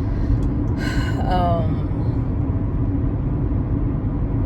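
Steady road and engine rumble inside a moving car's cabin, with a faint steady hum.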